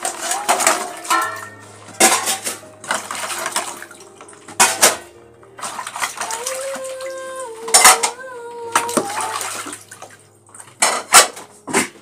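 Dishes being washed by hand: a glass bowl and metal pots and bowls clink and knock against each other in a plastic basin, with water splashing and pouring off them. There are a dozen or so sharp clinks at irregular intervals.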